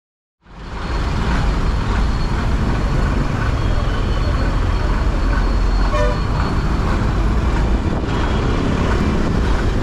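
Motorcycle riding noise that cuts in about half a second in: a steady, heavy low rumble of wind and engine, with a short vehicle-horn toot about six seconds in.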